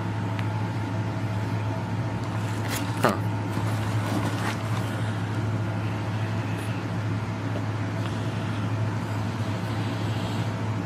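Steady hum of an electric fan running, with a couple of sharp knocks about three seconds in.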